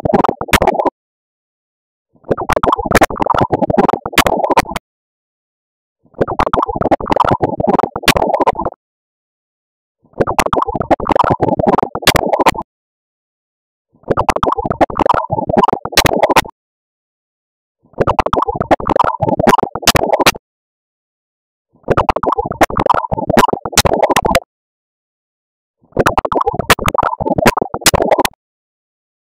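Heavily distorted, looped audio clip: a loud, crackling midrange burst about two and a half seconds long, cut off by about a second and a half of silence and repeated over and over at a steady four-second beat.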